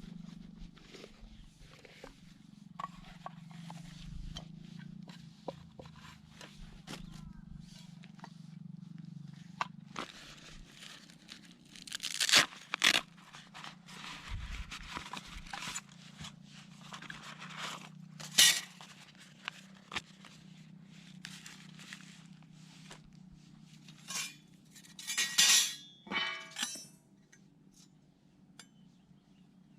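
Handling noises of camp gear: scattered clinks, scrapes and crunches, with louder bursts about twelve, eighteen and twenty-five seconds in, over a steady low hum.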